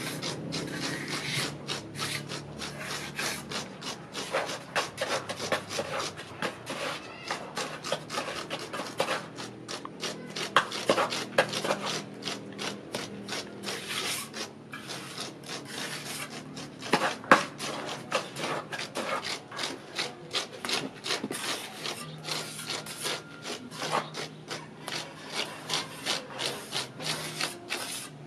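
A small hand tool scraping and rubbing over fresh cement render in quick, repeated back-and-forth strokes, texturing a faux-stone wall surface. A few strokes stand out louder, about ten and seventeen seconds in.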